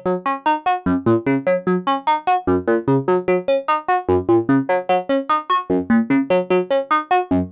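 Make Noise modular synthesizer playing a fast, even sequence of short plucked notes whose pitches jump around. PoliMATHS is stepping through its channels in round mode, and a slower clock on the span input sets span to 4, so the pattern now and then alternates between two channels.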